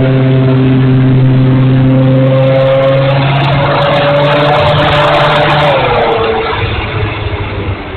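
Small RC warbird's electric motor and propeller running at a steady whine on a 3S battery, heard from an onboard camera. A rush of wind noise builds as the plane dives, then about six seconds in the motor pitch drops and the sound fades as the throttle comes back.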